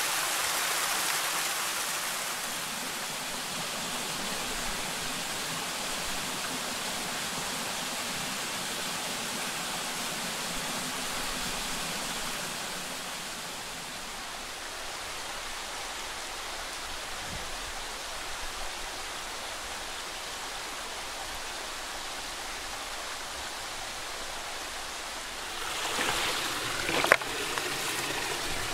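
Small waterfall splashing down a rock face into a mountain stream: a steady rush of water that softens a little about halfway through. Near the end a few stones clack as they are handled.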